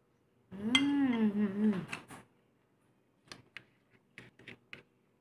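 A woman's hummed "mmm" of about a second and a half while eating, with a couple of clicks after it. In the second half, a string of about six short, sharp clicks from eating food off the plate.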